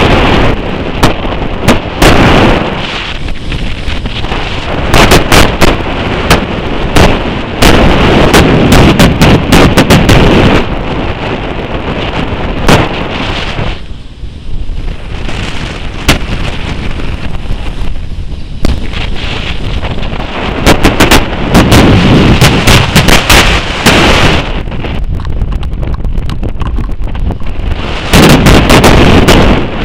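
Heavy wind buffeting on the microphone of a camera filming from a moving car, a loud rumble full of distorting pops, easing somewhat about halfway through.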